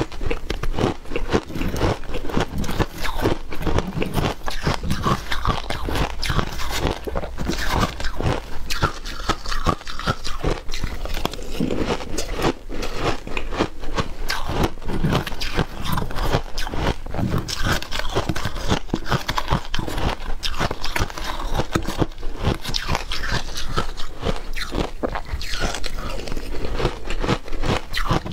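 Chunks of ice crunched and chewed between the teeth, a steady, dense run of sharp cracks, with a metal spoon scraping and clinking against the plastic bowl now and then.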